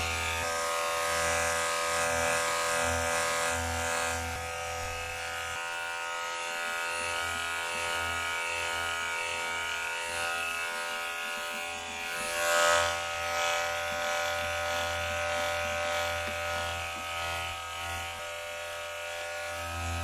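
Electric hair clipper running with a steady buzz rich in overtones, briefly louder and brighter about twelve seconds in.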